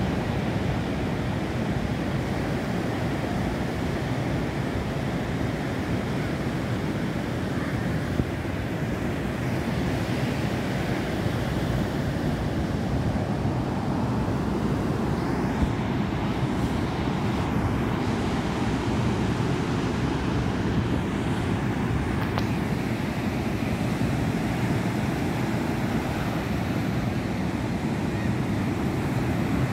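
Ocean surf breaking and washing up on a sandy beach, a steady rush, with wind blowing across the microphone.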